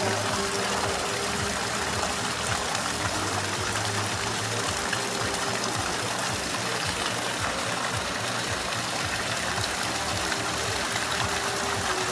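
Steady rush of a small creek running over rocks.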